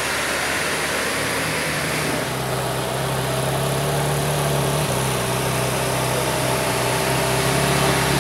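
Ferrari 458 Italia's V8 running at low revs as the car creeps past, a steady low engine note with no revving.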